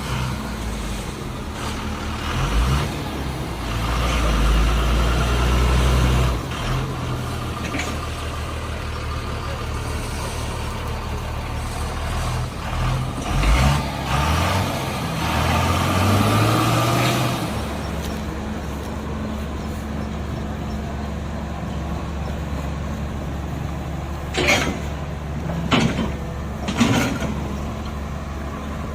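Remote-control toy dump truck and excavator running: a steady, engine-like low hum that shifts in pitch several times, then settles to an even hum, with three sharp knocks near the end.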